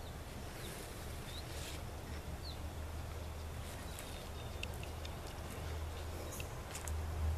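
A few short, high bird chirps over a steady low rumble, with a few faint clicks in the second half.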